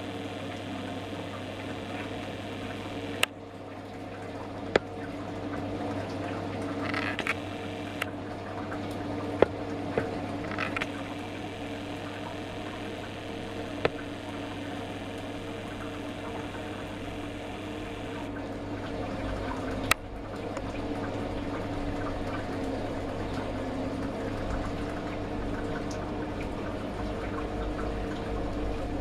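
Distillate from a copper pot still trickling through a proof parrot into a collection bottle, over a steady hum, with a few sharp clicks.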